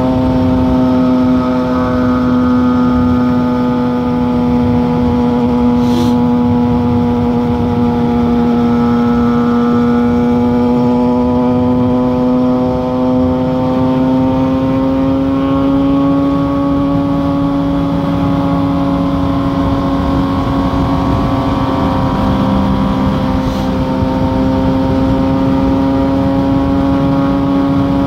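Inline-four sport motorcycle engine running steadily at cruising speed, its pitch sagging slightly and then rising again, over a steady rushing noise.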